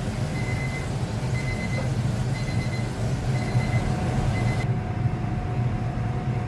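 Steady low rumble of a pot of radish and rice syrup boiling down on the stove. A short electronic beep repeats about once a second until about two-thirds of the way through.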